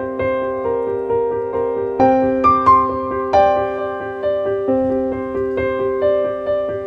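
Background piano music: a gentle run of struck notes over sustained chords, changing chord about two seconds in.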